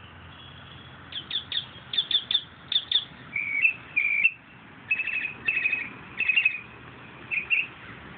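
Young raccoon chirping and twittering, starting about a second in: a run of quick, high downward chirps, then several short trilled calls.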